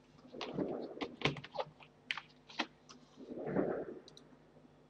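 Computer keyboard keystrokes and mouse clicks: scattered sharp taps, several close together in the middle and a few light ticks near the end. Two short, low, muffled sounds come in between them.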